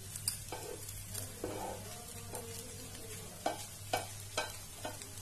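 Spatula stirring and tossing poha pulao (flattened rice with peanuts and omelette pieces) in a non-stick frying pan, with irregular scrapes and taps against the pan every second or so over a low steady hum.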